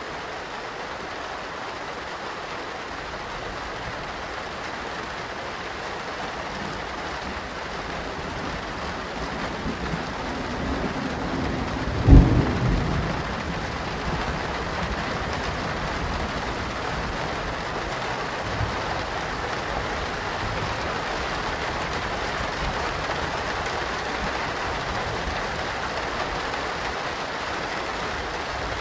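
Steady medium rain, with a thunder rumble that builds over a few seconds to one sharp, loud thunderclap about twelve seconds in and then dies away, the rain continuing.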